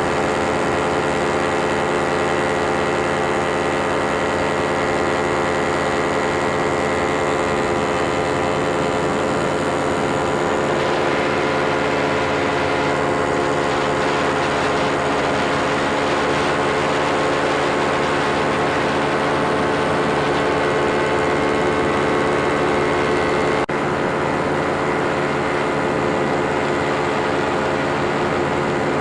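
Engine and propeller of a powered paragliding aircraft running steadily in flight, heard close up from on board as a loud, even drone with wind noise over it.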